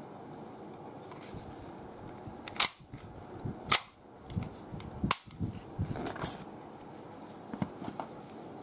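Tokyo Marui Glock 17 gas blowback airsoft pistol firing three sharp shots on green gas, a little over a second apart. Lighter clicks follow between and after the shots.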